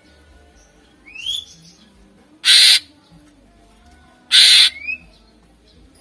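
Cucak ijo (green leafbird) singing: two loud, harsh rasping calls about two seconds apart, with short rising whistled notes between and after them.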